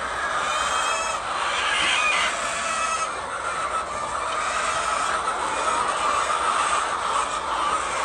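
A large flock of laying hens clucking and squawking together in a steady, dense din, with a few louder calls standing out about half a second to two seconds in.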